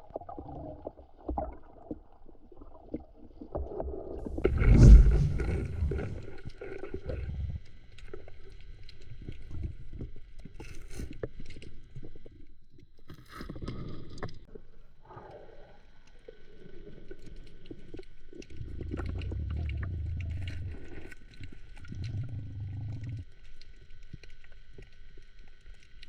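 Underwater sound picked up by a camera in its housing: irregular low bubbling and rumbling, loudest about five seconds in, with a steady high-pitched tone through much of it.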